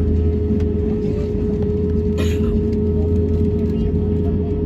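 Cabin noise inside an Airbus A320-family jet taxiing: a steady low engine drone with a constant hum, and a brief hiss about two seconds in.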